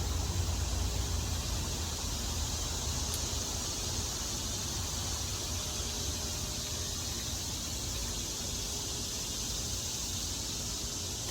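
Cicadas droning in chorus, a steady high-pitched buzz, with a low rumble that fades over the first couple of seconds.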